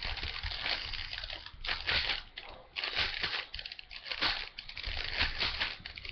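A 3x3 Rubik's cube being turned rapidly by hand, its plastic layers clicking and clacking in quick flurries, with a brief pause about two and a half seconds in.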